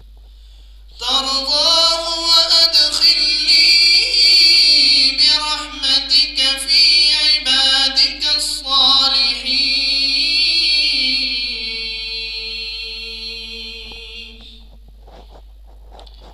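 A man reciting the Quran in the melodic, chanted style. One long phrase starts about a second in: an ornamented line whose pitch moves up and down, ending on a long held note that fades out.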